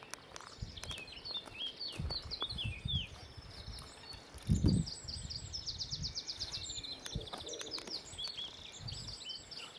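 Small birds singing, several short chirps and warbles with a fast trill near the middle, over low dull thumps, the loudest about halfway through.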